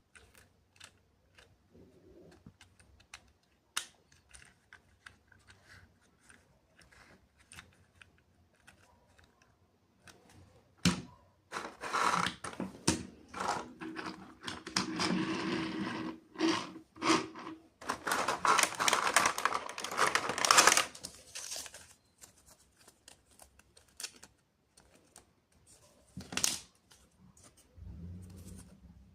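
Toy packaging being handled and opened: scattered small clicks and taps, then a long stretch of loud crinkling and tearing of packaging in the middle, and one short tear near the end.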